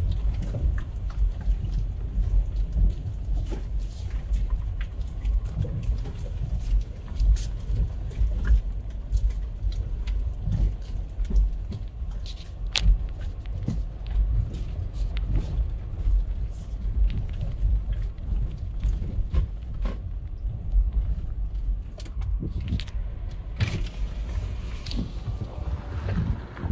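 Inside the cabin of a Toyota 4Runner driving slowly over a rough, rocky dirt trail: a steady low rumble from the tyres and drivetrain, with frequent knocks and rattles as the suspension takes the bumps and gravel.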